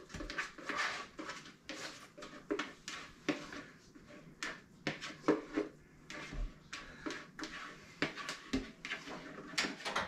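A kitchen utensil scraping and knocking against a plastic container and a slow cooker's pot, heard as a run of irregular clicks and scrapes while ingredients are worked out and mixed.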